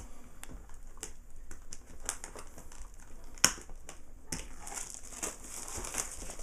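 Plastic shrink wrap being peeled off a trading card box: irregular crinkling and crackling of the film, with one sharp click about three and a half seconds in. The crinkling turns denser and steadier over the last two seconds as the wrap comes away.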